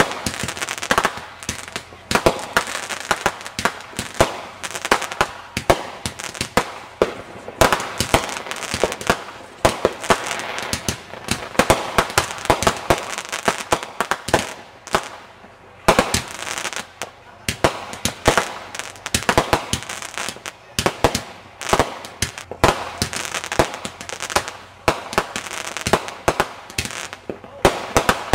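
Aerial fireworks launching and bursting overhead in quick succession: many sharp bangs at an uneven pace, often several a second, over a continuous hiss between them.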